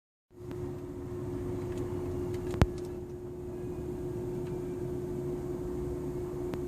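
Steady droning hum at one pitch over a low engine rumble, heard inside the cabin of a 2006 BMW X3 with the A/C on. It is the noise that comes and goes with the A/C while the system blows hot air, cause unknown to the owner. A sharp click about two and a half seconds in and a fainter one near the end.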